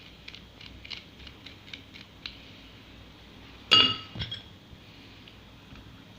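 Small clicks of kitchen handling as dried herbs are put into a hollowed-out orange. About four seconds in comes a sharp, ringing clink of glassware, followed by a softer second clink.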